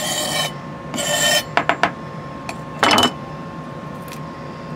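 Santoku knife scraping against a plastic cutting board, twice briefly, as chopped parsley and celery leaves are gathered, then three quick light taps and a last louder scrape and knock as the knife is handled and set down on the board.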